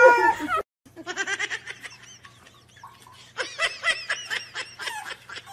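Rapid, high-pitched giggling laughter in short bursting runs. It starts just after a loud voice cuts off abruptly about half a second in.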